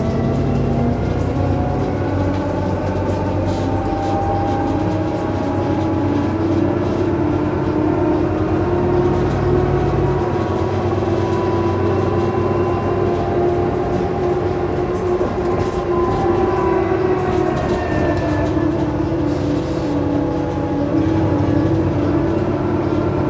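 Iveco Urbanway 12 city bus driving, heard from inside the passenger cabin: a steady low engine drone under several whining drivetrain tones that slowly rise and fall with speed. The low drone changes about ten seconds in.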